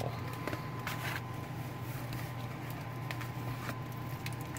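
Faint rustling and a few light clicks of paper postcards and photographs being handled and pulled out of a stack, over a steady low background hum.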